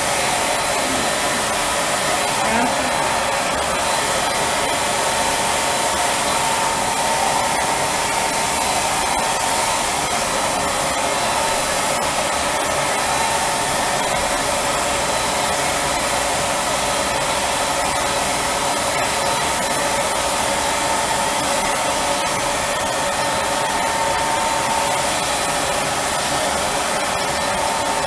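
Spray-tan turbine machine blowing solution through a hose-fed spray gun, together with a handheld blow dryer drying the tan: a steady, continuous rush of air with a steady whine.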